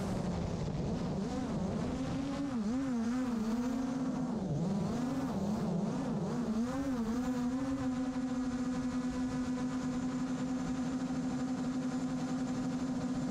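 7-inch FPV quadcopter's Emax ECO 1700kv motors and propellers whining, heard from the GoPro mounted on the quad. The pitch rises and falls quickly with throttle for the first half, then holds steady through the rest.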